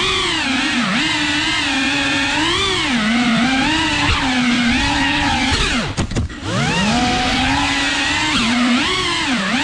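Cinewhoop FPV drone's motors and ducted propellers whining, the pitch rising and falling with throttle. About six seconds in the throttle is cut and the whine drops away for a moment, then climbs back.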